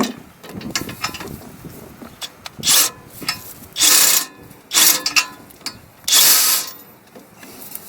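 Hand ratchet clicking in several short runs, working a 19 mm socket on a front brake caliper bracket bolt to loosen it.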